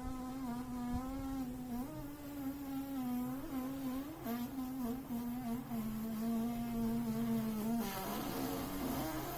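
A person humming one steady, slightly wavering note on the out-breath, as done in bhramari (humming bee breath) pranayama, then drawing a noisy breath in near the end.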